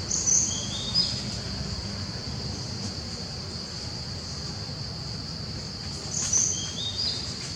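Steady high-pitched drone of insects, with a bird's short call of a few quick stepped notes heard twice, about a second in and again near the end.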